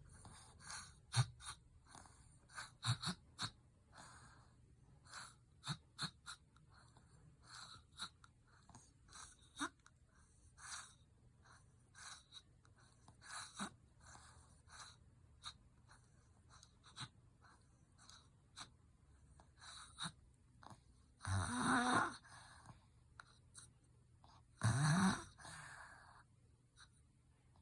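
A four-year-old boy snoring and breathing noisily in his sleep: many short, rough breath sounds, then near the end two longer, louder snores a few seconds apart. The snoring comes from enlarged tonsils, which a doctor found had grown larger again.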